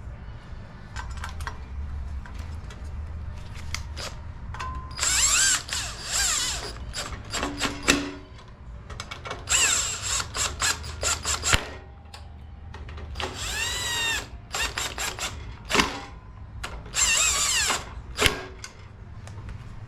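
Power drill run in four bursts of a second or two, its motor whine rising and falling in pitch with the trigger, with sharp clicks of tools and parts between the bursts over a steady low hum.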